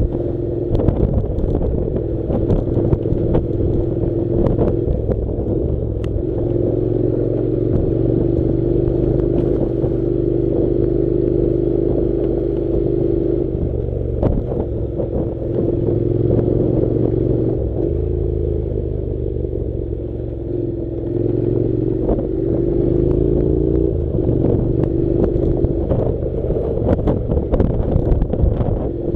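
Honda NC700 motorcycle's parallel-twin engine running under way on a rough dirt track. Its note shifts up and down several times as the throttle changes, with scattered knocks and rattles throughout.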